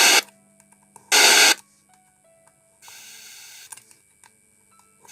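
Two short, loud bursts of hiss from a loudspeaker fed by a home theater amplifier's channel outputs, then a third burst about three seconds in that is much fainter: the faint one is the faulty channel with very low output. A steady low hum runs underneath.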